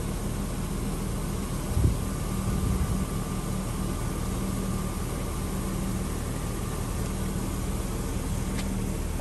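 Power soft top of a 1994 BMW 3 Series convertible opening: a thump about two seconds in, then its motor whines steadily for several seconds. Under it runs the low, steady hum of the car's engine idling.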